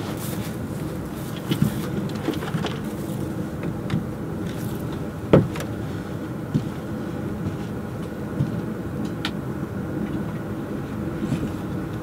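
A van being driven, its engine and road noise a steady hum, with a few sharp knocks and rattles scattered through, the loudest about five seconds in.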